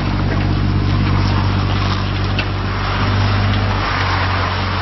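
Takeuchi TB135 mini excavator's diesel engine running steadily under hydraulic load as the upper structure swings round and the boom lifts, with a hiss that grows louder near the end.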